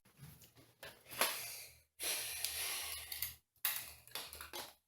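Light handling sounds of a toy doll and its accessories: soft rustling with a few small clicks.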